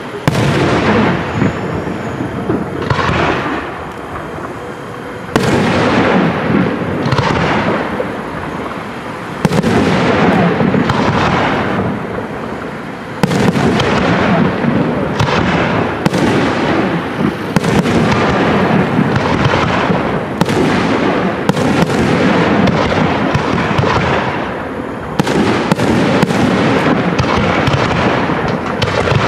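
Aerial fireworks display: shells launching and bursting in quick succession as loud, overlapping bangs. Fresh volleys start suddenly about 5, 9, 13 and 25 seconds in.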